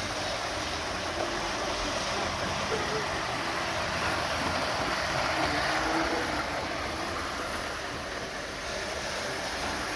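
Model railway trains running around the track, a steady rumbling hiss with no breaks.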